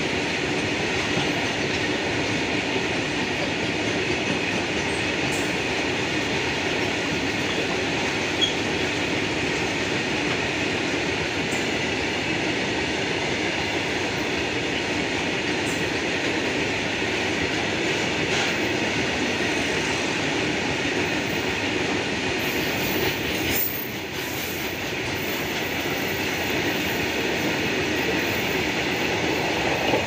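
Goods train of loaded BOXN open coal wagons rolling past at steady speed: a continuous, even noise of steel wheels running on the rails.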